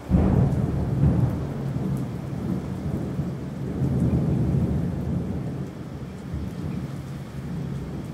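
Thunder sound effect: a sudden loud clap at the start, then a long, low rolling rumble that swells again once or twice and slowly fades.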